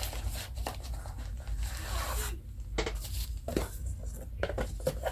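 Packaging being handled during an unboxing: rustling and tearing of paper or plastic, with a longer rustle about two seconds in and several sharp clicks and taps.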